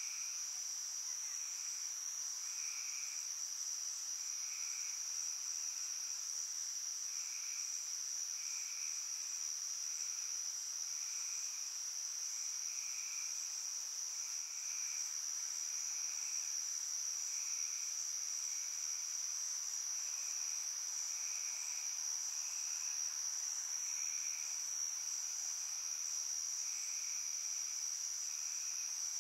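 Insect chorus: a steady, unbroken high-pitched trill, with a lower call pulsing about once a second beneath it.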